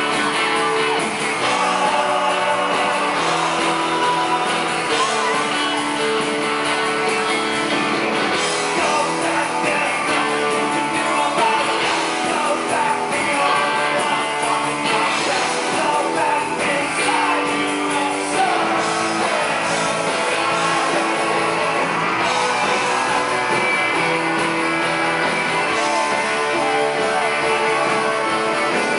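Rock band playing live: electric guitar and drums, with a lead singer singing over them.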